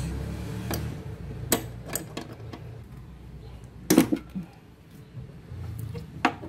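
Steel wrench clicking and clanking against the metal line fitting of a clutch master cylinder as the fitting is loosened: a few sharp separate clicks, the loudest about four seconds in.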